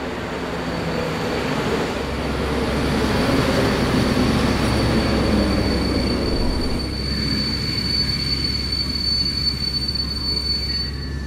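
Passenger train rolling along a station platform: a rumble from the wheels and cars that builds in the first few seconds, with a steady high-pitched squeal that grows louder and cuts off near the end.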